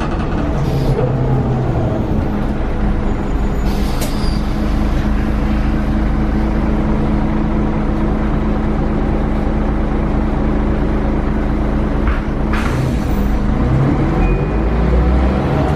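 Volvo B10LA articulated bus's diesel engine and ZF 4HP590 Ecomat automatic gearbox heard from inside the cabin, running at a steady drone as the bus drives. About twelve seconds in there is a short hiss of air, and near the end the engine note changes pitch.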